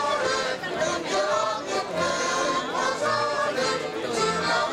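Live folk dance music from a band, with voices singing along.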